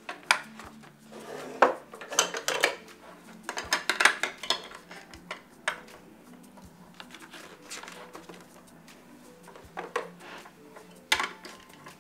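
Small plastic toys clattering and clicking against a clear plastic storage box as a child rummages through it, in irregular bursts, with a busy cluster of rattling about two to four and a half seconds in and another sharp clatter near the end.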